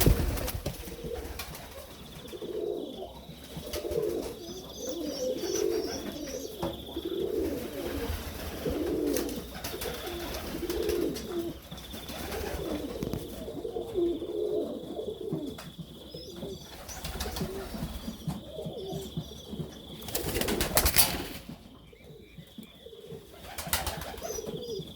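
Serbian Highflyer pigeons cooing in a loft, repeated low rolling coos with short pauses between them. Around twenty seconds in, a louder rustling, clattering burst covers the coos.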